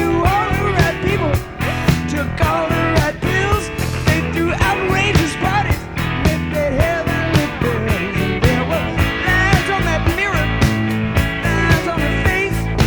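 Rock music with a steady drum beat, electric guitar and a singing voice.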